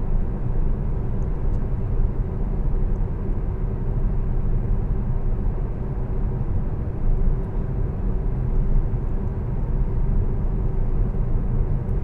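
Steady low rumble of tyres on asphalt, heard inside the cabin of a Tesla Model S electric car cruising at a constant speed, with no engine note.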